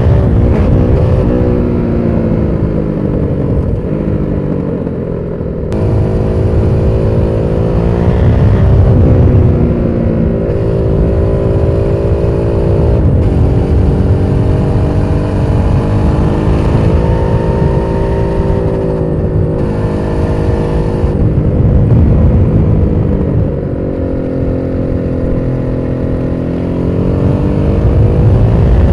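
Aprilia SXV550 supermoto's V-twin engine running under way, its pitch climbing and falling repeatedly as the throttle opens and closes, with sharp drops about thirteen and twenty-three seconds in.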